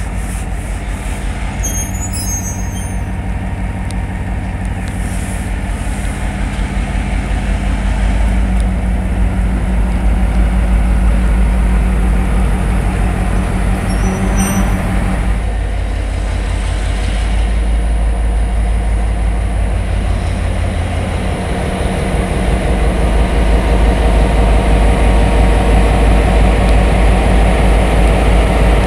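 General Motors diesel engine of Irish Rail A-class locomotive A39R running steadily with a deep, even pulse, back in running order after three years out of service. It grows louder about eight seconds in and again near the end.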